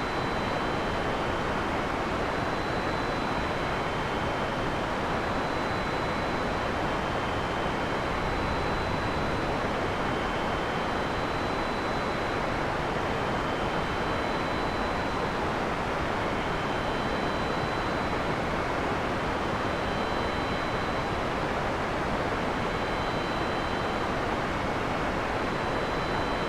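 Heavy rain falling as a steady, unbroken hiss, with no thunder. Faint thin high-pitched tones recur every couple of seconds above it.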